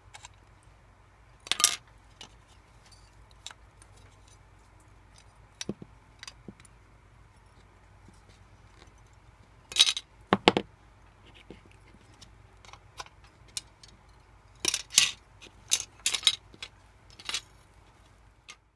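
Sprue cutter snipping plastic model-kit parts off their sprue: scattered sharp snaps, with a quick run of them near the end. Between the snips there are light clicks of the plastic parts being handled.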